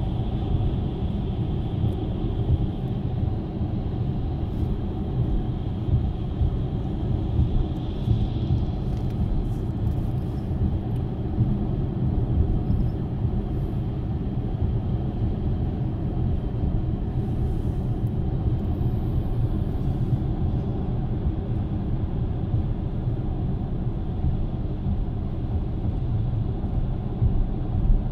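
Steady low rumble of a car driving on a paved road, heard from inside the cabin: tyre and road noise with engine hum.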